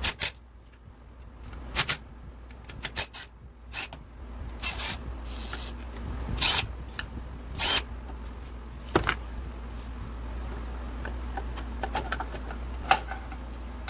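Metal engine parts and hand tools clinking, clicking and scraping during motorcycle engine disassembly: a dozen or so scattered sharp clicks and knocks with a few short scrapes, over a steady low hum.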